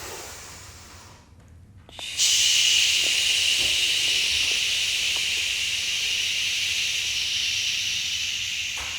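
A person's long, slow, controlled breath hissing into the microphone, beginning sharply about two seconds in and slowly easing off: a paced breath held through a stretch.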